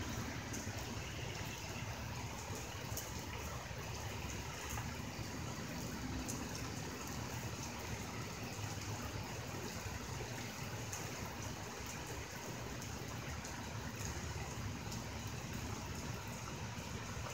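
Steady rain and wind in a thunderstorm: an even rushing hiss.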